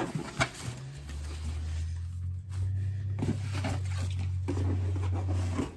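Satin ribbon being pulled loose and a cardboard gift box handled: soft rustles and light taps. Under them a low steady hum starts about a second in and stops just before the end.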